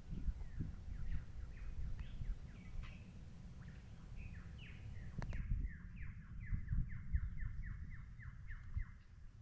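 Birds calling in the bush: short downward-sliding chirps, then a regular run of them at about five a second in the second half. Under the calls, wind rumbles on the microphone.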